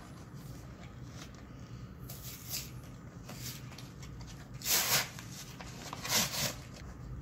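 Cardboard packaging of a Pokémon trading card blister pack being torn open and rustled by hand, with three short tearing rasps, the loudest about two-thirds of the way in.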